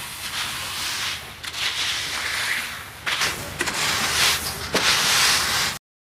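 Dry rustling and scraping noise in uneven swells, with a few sharp clicks, cutting off suddenly near the end.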